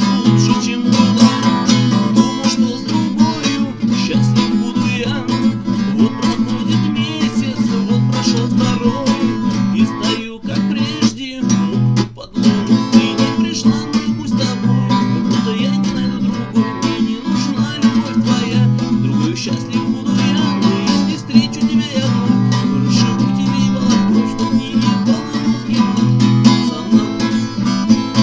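Acoustic guitar strummed in a steady rhythmic pattern as song accompaniment, with a couple of brief breaks in the strumming a little over ten seconds in.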